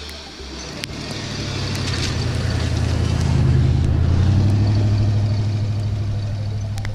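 Lifted OBS Ford F-150 pickup's engine running as the truck drives by through snow, growing louder as it comes close, loudest about halfway through, then easing off a little as it pulls away.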